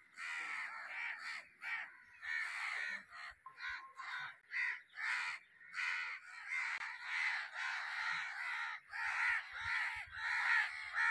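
A flock of crows cawing, many harsh calls overlapping one after another with hardly a break.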